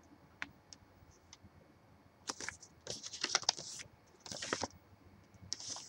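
Faint scattered clicks, then three short spells of crackly rustling and clicking from about two seconds in. These are paper leaflets and small plastic packaging being handled on a desk.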